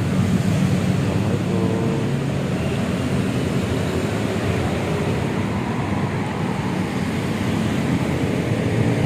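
Steady road traffic noise, with vehicles running past.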